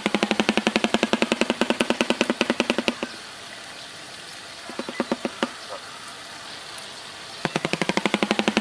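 Shoebill clattering its bill: a rapid rattle of about ten knocks a second that breaks off about three seconds in, a few scattered clacks around five seconds, then the rattle starting again near the end.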